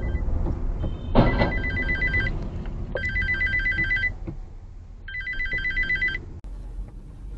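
An electronic alarm trilling in three high-pitched bursts of about a second each, with short gaps between them. A loud sudden noisy sound comes just as the first burst starts, about a second in, over a steady low road rumble.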